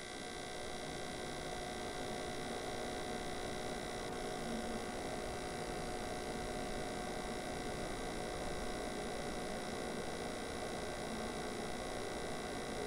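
A steady hum made of several held tones over a low hiss, growing slightly over the first second and then even.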